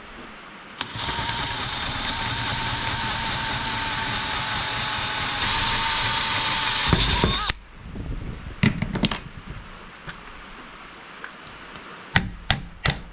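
Power drill running steadily for about seven seconds as it bores a hole, its pitch sliding up briefly as it stops. A few loose knocks follow, and near the end a quick run of sharp taps, about three a second, as a bolt is driven into the fresh hole without a hammer.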